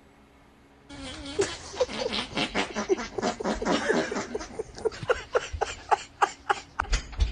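A person laughing hard in rapid, pitched bursts that come faster toward the end, starting suddenly about a second in.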